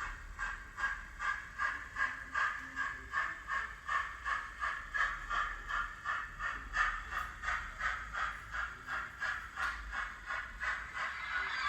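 Sound-decoder steam locomotive effects from a Hornby J15 model, a Zimo MX648R decoder playing a recorded J15 0-6-0 through a tiny 15 x 11 mm speaker: steady exhaust chuffs at about three a second, with a hiss building near the end.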